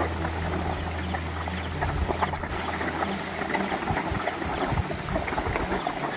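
Shallow muddy water splashing and sloshing as a person wades through it and wrestles a large fish, over a steady low hum that fades away about halfway through.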